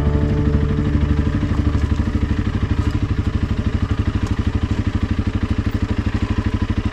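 Honda CRF300 Rally's single-cylinder engine running steadily under way on a dirt track, heard from on the bike as a rapid, even beat of firing pulses.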